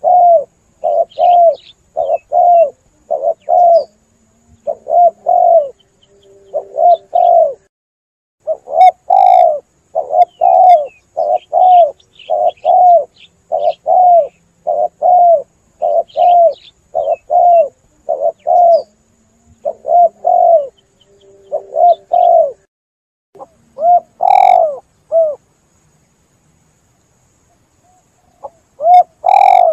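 Spotted dove (tekukur) cooing: a long run of short, repeated coo notes, about two a second, in phrases, with a pause of a few seconds near the end. Faint high chirps of small birds sound above it.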